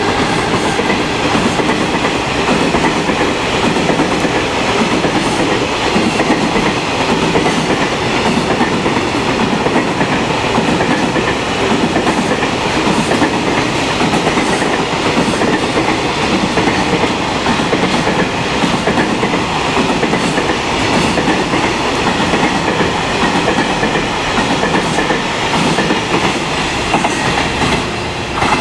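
Freight train's container wagons rolling past at speed, a steady rush of wheel and rail noise with the wheels clicking over rail joints. The sound drops away near the end as the last wagons pass.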